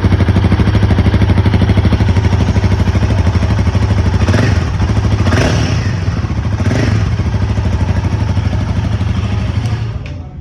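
Royal Enfield Himalayan 450's single-cylinder engine idling with a thumpy exhaust note, blipped three times in quick succession around the middle. It shuts off near the end.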